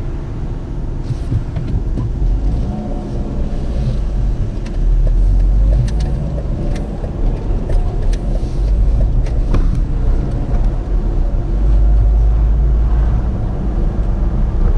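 Car engine and road noise heard from inside the cabin, a steady low rumble that grows louder about five seconds in as the car pulls away and drives on, with a few light clicks.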